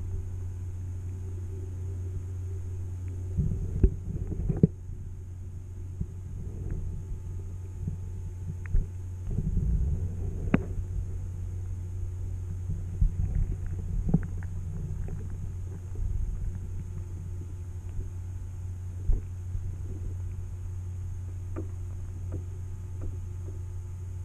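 Underwater sound picked up by a GoPro held under the surface in its waterproof housing: a steady, muffled low hum with short bursts of rumble. Irregular sharp clicks and knocks come every few seconds.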